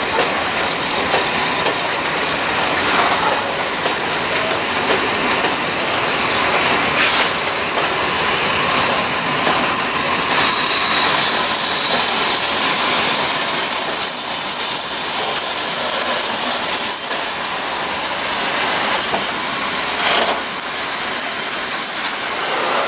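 Freight train of coal hopper wagons rolling past: a steady rumble and clatter of steel wheels on the rails with the odd knock. From about ten seconds in, high-pitched wheel squeal rises over it.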